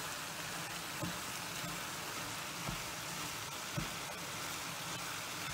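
Pasta and broccoli sizzling in a frying pan as they are stirred with a wooden spatula: a steady hiss with three soft knocks of the spatula against the pan, about one, two and a half and nearly four seconds in.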